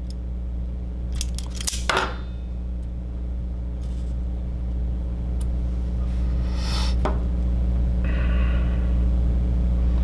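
Handheld wire stripper gripping and stripping the end of a thin wire, with a few sharp clicks about one to two seconds in. Faint clicks and rustles from handling the wire follow later, over a steady low hum.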